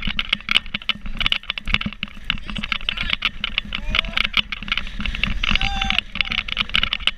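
Dense, rapid crackling and clatter of water spray and wind striking the microphone while riding an inflatable towed water sofa, with a couple of short cries in the middle.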